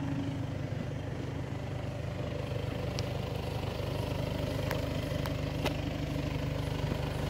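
Skoda Superb's 2.0 TDI four-cylinder diesel engine idling steadily, with a few faint clicks over it.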